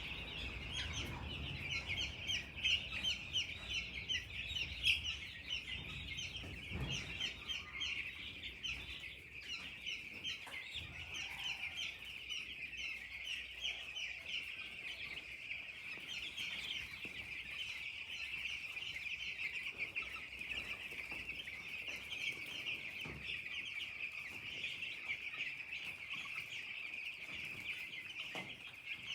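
A large flock of young chicks peeping continuously, many short high chirps overlapping into one unbroken chorus.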